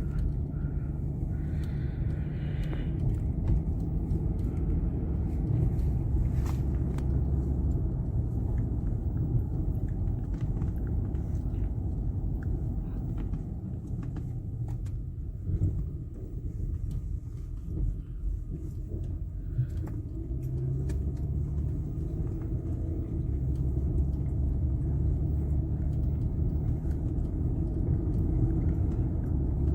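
Low steady rumble of a car's engine and tyres heard inside the cabin, easing for a few seconds midway and then building again.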